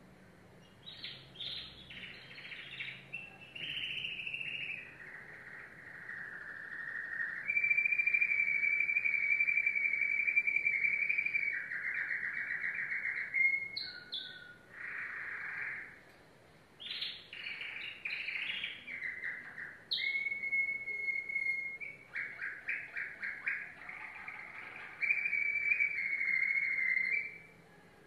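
Domestic canary singing a long song of fast trills broken by long held high notes, stopping just before the end.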